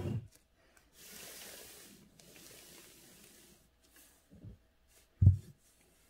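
Sheet of calligraphy paper sliding and rubbing across the table for about three seconds. Short low thumps come at the start and twice near the end, the last one the loudest.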